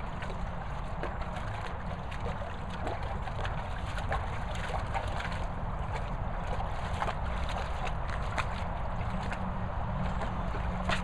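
Dogue de Bordeaux wading in a shallow plastic paddling pool, its legs and head splashing and sloshing the water in irregular bursts, over a steady low rumble.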